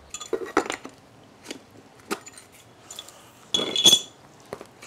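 Hand-handling of PVC pipe fittings and a can of PVC primer on cardboard: scattered light clicks and knocks, then a louder scrape with a thin squeak a little before the end.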